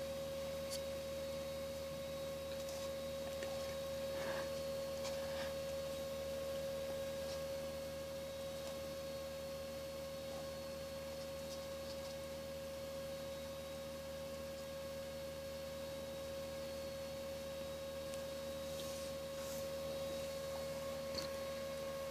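A steady, unchanging hum on one high tone, with a few faint clicks and ticks over it.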